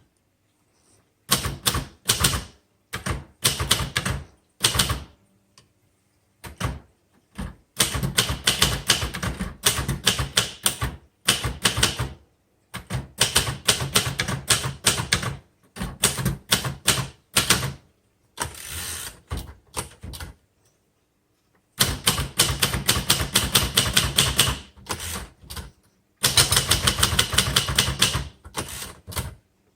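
Sears Cutlass manual typewriter, made for Sears by Royal, being typed on: runs of rapid key strikes broken by short pauses.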